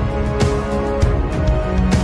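Background music with sustained notes and sharp percussive hits.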